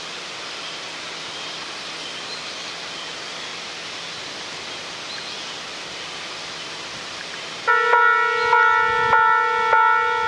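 Steady outdoor hiss with a few faint high chirps. About three-quarters of the way through, a railway level crossing's warning bell starts ringing loudly, a repeated ding about every 0.7 seconds, signalling that a train is approaching.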